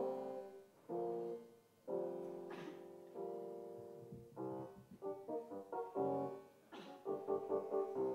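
Instrumental piano music: held chords for the first few seconds, then quicker runs of short notes in the second half.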